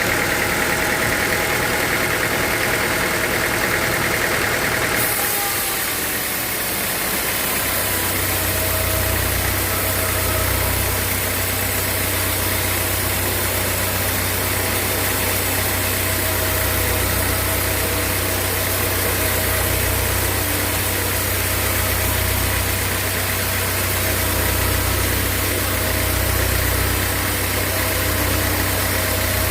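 Sawmill machinery running steadily. About five seconds in its sound changes, and a couple of seconds later a deep, steady hum sets in.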